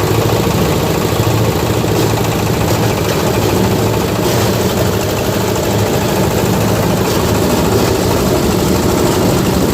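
Grinding machine driven by a 26 hp diesel engine, running steadily and loudly with a low engine hum under a dense mechanical noise.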